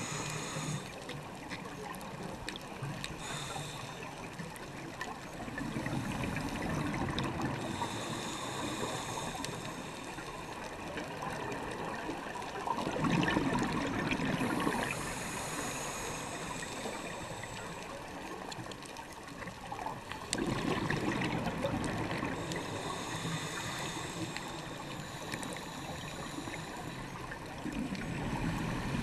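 Scuba breathing through a regulator heard from underwater: a hiss on each inhale and a gurgling burst of exhaust bubbles on each exhale, repeating about every seven seconds.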